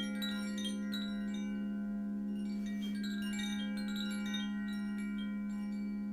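Wind chimes tinkling in quick, scattered high notes over the steady, sustained ring of a singing bowl, whose low tone is the loudest sound throughout.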